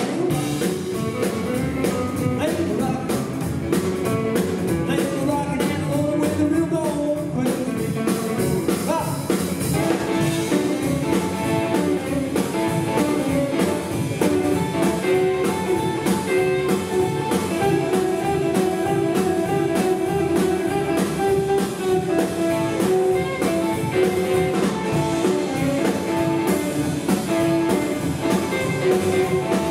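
Live rockabilly band playing: electric guitars, upright double bass and a Gretsch drum kit, the song kicking in right at the start with a steady driving beat.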